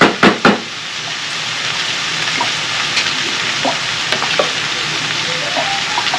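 Turkey sausage sizzling steadily in a hot frying pan, with a few faint pops. A few loud clatters come in the first half-second.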